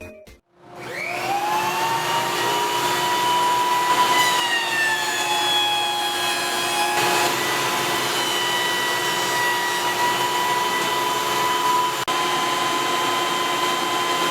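6-inch jointer with a helical cutterhead starting up, its whine rising in pitch over the first second or so and then running steadily. The pitch drops slightly for a few seconds about a third of the way in, then returns.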